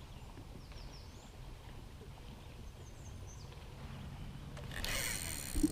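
Quiet outdoor ambience on a boat: a steady low rumble with a few faint, thin high chirps. About five seconds in, a louder hiss comes in abruptly, with a short knock just before the end.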